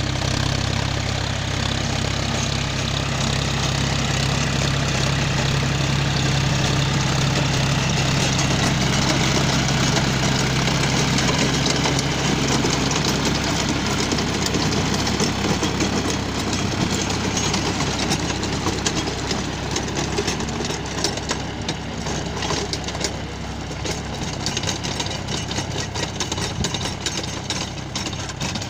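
Tractor diesel engine running steadily under load while it drives a rotavator tilling soil. The strong low engine note drops away about twelve seconds in.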